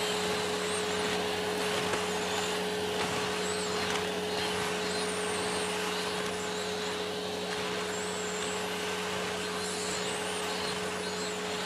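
Canister vacuum cleaner running with a steady motor whine over a low hum.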